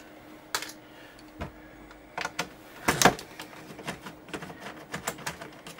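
Hand screwdriver backing screws out of a sheet-metal bracket: scattered small clicks and ticks, with a few louder knocks about half a second in and around three seconds.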